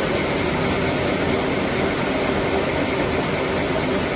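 Roll packaging machine for toilet paper and kitchen towels running steadily: a continuous mechanical din of conveyors and drives with a constant hum, with no break or change.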